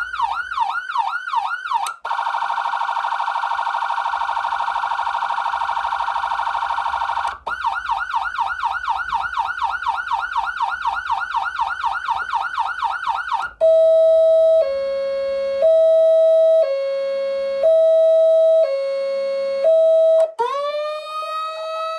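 Whelen 295SLSA6 electronic siren amplifier sounding through its speaker and being switched between tones: fast rising-and-falling yelp sweeps, a very rapid warble, the sweeps again, then a two-tone high-low alternating about once a second. Near the end a wail begins, its pitch rising.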